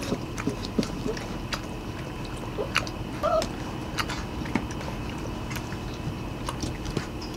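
White Swiss Shepherd puppies eating from a metal bowl: wet chewing with many scattered small clicks. There is a brief squeak about three seconds in.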